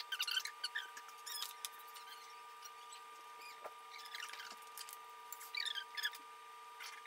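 Hands rolling a piece of kringla dough into a rope on a floured granite countertop: soft rubbing with brief high squeaks of skin on stone, in short bursts near the start and again about two-thirds through. A steady faint hum runs underneath.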